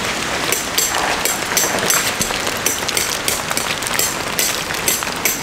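Heavy rain and hail coming down: a steady hiss broken by many sharp, irregular hits.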